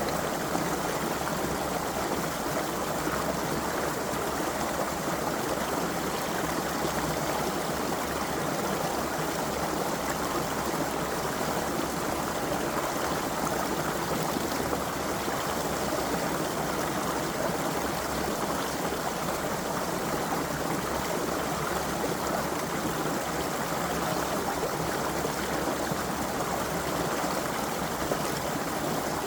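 A creek's flowing water, a steady rushing and burbling over stones.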